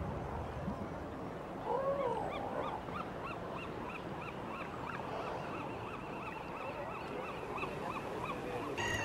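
Outdoor soundscape: a steady rush of background noise, a single honking call about two seconds in, then a high call repeated about twice a second until near the end.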